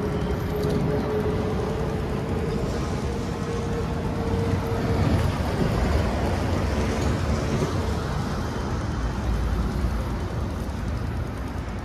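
Traffic and road noise on a wet city street, with a steady hum that fades out about five seconds in.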